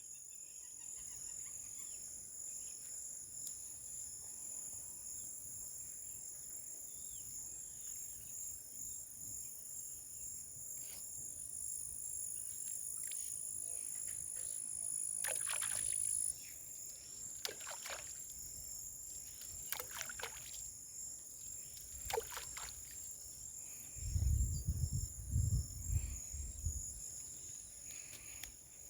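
Steady high-pitched insect chorus, such as cicadas or crickets, with one part swelling and then cutting off abruptly about halfway through. Several short falling whistles sound over it in the middle, and near the end there are a few seconds of low rumbling.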